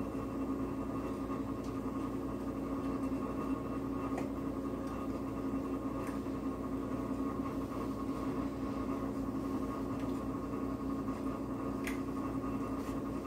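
A steady mechanical hum with a low tone, under a few faint clicks.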